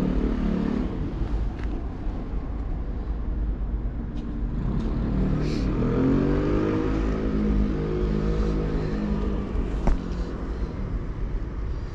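Street traffic: a motor vehicle's engine drones past in the middle, its pitch rising and then easing, over a steady low rumble. A single sharp click comes near the end.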